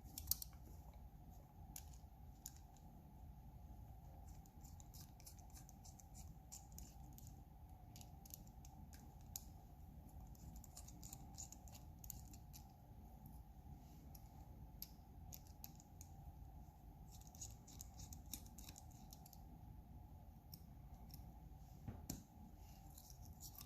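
Faint, scattered small clicks and scrapes of a Torx driver turning out the tiny T6 screws of a folding knife's handle scale, with the small metal parts being handled, over a low steady hum.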